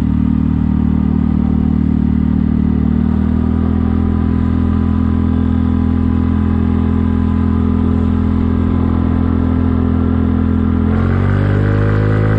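Kymco People 250 scooter's single-cylinder four-stroke engine running steadily through an aftermarket slip-on muffler, whose gaps to the stock down pipe are sealed with JB Weld high-heat putty. Its pitch rises about eleven seconds in as the throttle opens, then holds higher.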